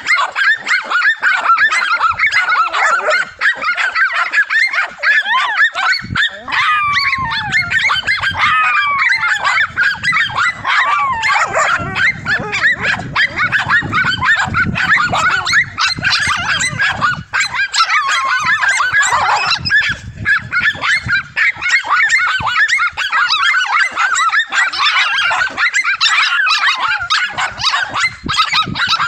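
Several small dogs barking and yapping at once, a continuous overlapping chorus of sharp, high yips, with a few falling whines mixed in; the excited barking of dogs baiting a cornered lizard.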